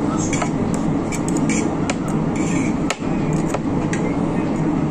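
Metal fork and spoon clinking and scraping against a plate, a string of sharp, irregular clicks over a steady background din.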